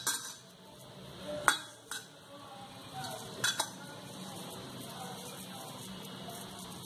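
A metal spoon clinking against a stainless steel bowl, four or five sharp clinks in the first few seconds, then only faint handling sounds.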